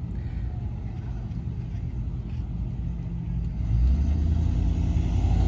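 A vehicle engine running with a steady low hum, getting louder and heavier about three and a half seconds in.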